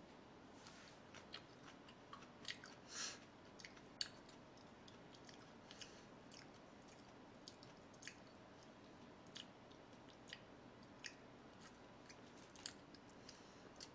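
Faint close-up chewing: soft wet mouth clicks and smacks at irregular intervals, as someone eats.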